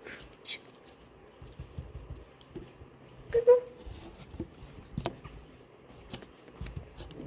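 A hand rustles and scratches against a cardboard box while stroking a cat inside it: faint scuffing with a few sharp clicks. About three and a half seconds in there is one short, voice-like call.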